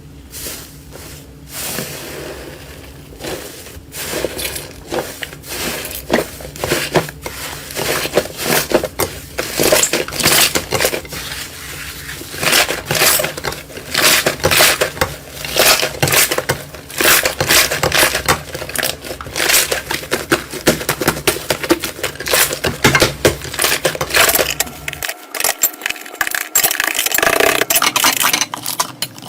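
Slime being squeezed and pressed close to the microphone, giving a dense run of quick clicks and pops that grows busier a few seconds in.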